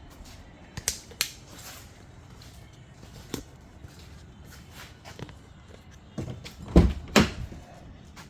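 A few light clicks and knocks, then two heavy thumps close together about seven seconds in: a car door being shut.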